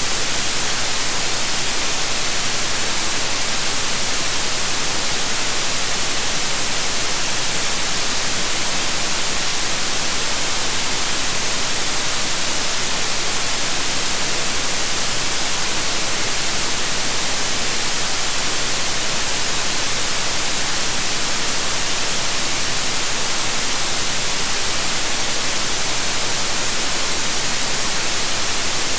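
Steady, unchanging white noise: an even hiss, brightest in the highs, with no events or changes.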